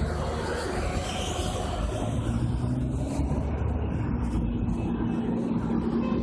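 Motor vehicle engine running with a steady low rumble, along with road noise.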